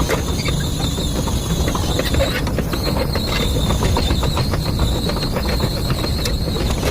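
Excavator travelling on its steel tracks, engine running under a steady high squeal from the tracks, with rapid clanking.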